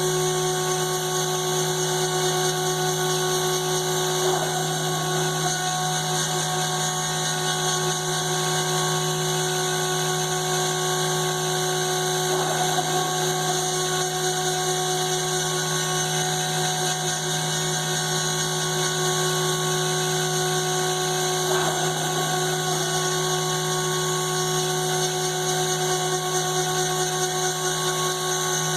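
CNC router spindle running steadily with a constant multi-toned whine. Three times, about eight seconds apart, the sound turns briefly rougher.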